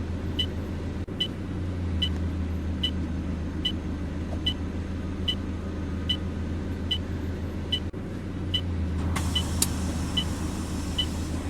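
Bus engine idling with a short high tick repeating a little more than once a second, the hazard-light ticker that runs while the bus's assault alarm is on. A brief hiss rises about nine seconds in.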